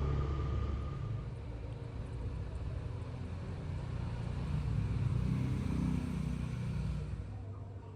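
A low rumble that swells about five seconds in and falls away near the end.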